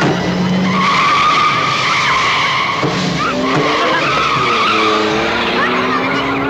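Car tyres squealing in long skids, about a second in and again from about three seconds, over an engine revving up in rising pitch.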